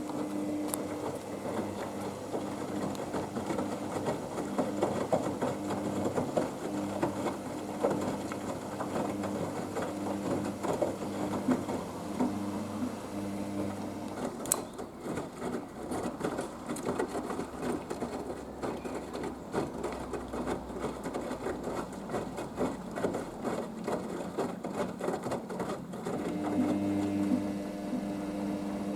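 Haier HWD 120 washer-dryer in the main wash of its 15-minute express programme: the drum motor hums as the laundry and water tumble and slosh. About halfway through the hum stops with a click, leaving the tumbling and sloshing, and it comes back near the end.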